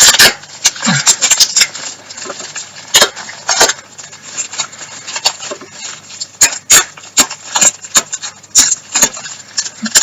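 Parcel packaging being opened by hand: a run of irregular crackles, rustles and tearing sounds.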